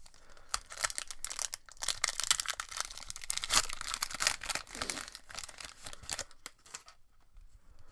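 Foil wrapper of a Pokémon Sword & Shield booster pack being torn open by hand and crinkled: a dense crackle that dies away about six and a half seconds in.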